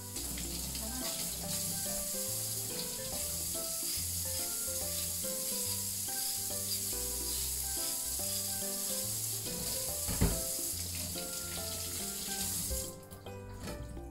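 Kitchen tap running into a stainless-steel sink while a cucumber is rinsed under it, with a knock about ten seconds in; the water shuts off about a second before the end. Background music with steady notes plays underneath.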